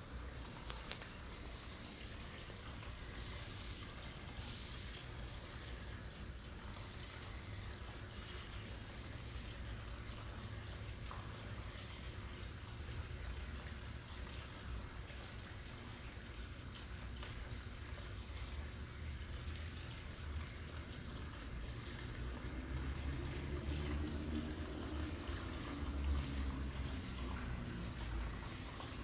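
Water trickling steadily, as from a small decorative fountain in a nativity scene display.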